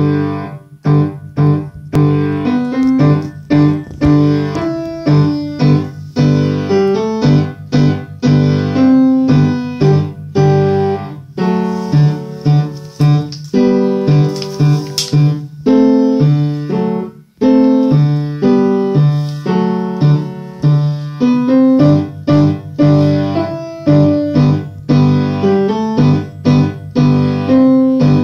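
An upright acoustic piano played with both hands by a beginner child pianist: a steady run of struck notes in an even rhythm, with a short break about two-thirds of the way through.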